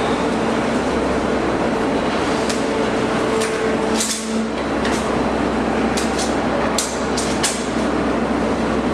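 Maren Propak 2R185 two-ram hydraulic baler running at work: a loud, steady machine noise with a humming tone that shifts about four seconds in. Sharp metallic clicks and clanks come through it, several in quick succession near the end.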